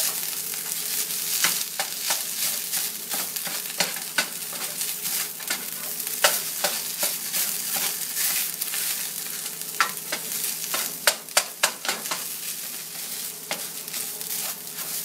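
Canned tuna frying in a gate-marked cast iron skillet: a steady sizzle with frequent crackles and pops, and a run of sharper clicks about ten to twelve seconds in.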